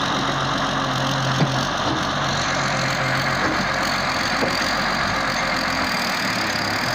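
Diesel engine of a Hyundai excavator running steadily as its bucket digs wet sand out of a water-filled pit.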